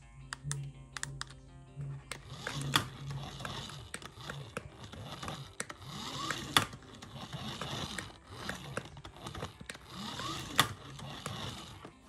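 Small electric motor and plastic gears of a toy remote-control car whirring and clicking as it drives, the whine rising and falling with each burst of driving, about every four seconds. Music plays along with it.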